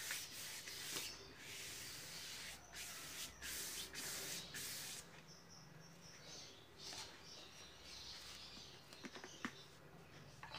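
Paintbrush stroking paint across a painting board: a run of dry, scratchy swishes over the first five seconds or so, then quieter, with a few faint clicks near the end.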